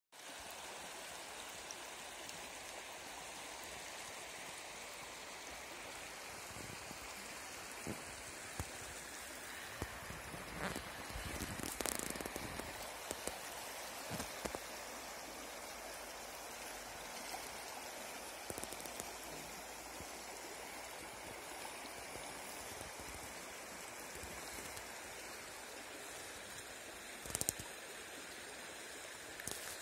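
Shallow mountain river flowing over a stony bed, a steady rushing wash of water. A few brief knocks stand out, the loudest near the end.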